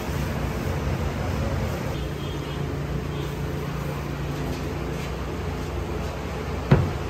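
Steady low machine hum in a bakery workroom, with one sharp wooden knock near the end as large wooden dough trays are handled.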